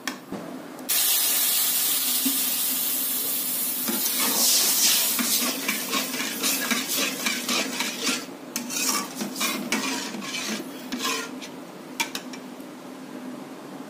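Water hits hot oil-roasted semolina in a metal kadhai and sizzles with a sudden loud hiss about a second in. The hiss fades over several seconds while a steel spatula scrapes and stirs the mixture against the pan in quick strokes.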